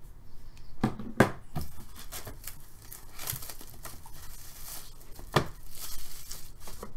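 Plastic shrink-wrap being torn and crinkled off a cardboard hobby box, with a few sharp knocks about a second in as the box is picked up and handled, and another knock near the end.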